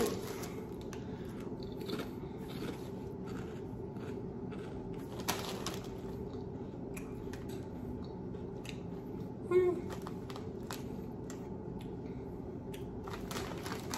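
Foil-lined potato chip bag crinkling now and then as it is handled open, with a sharper rustle about five seconds in. A brief hum from the voice comes near ten seconds in.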